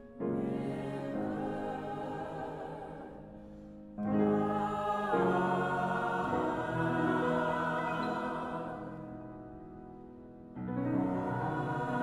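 Mixed choir of men's and women's voices singing, in sustained phrases that each come in strongly: near the start, about four seconds in, and again near the end.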